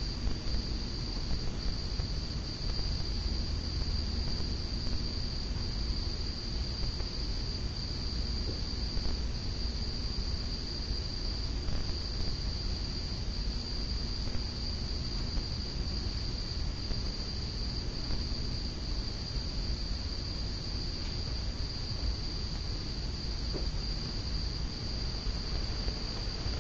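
A steady high-pitched trill, pulsing faintly about every second and a half, over a low, uneven rumble.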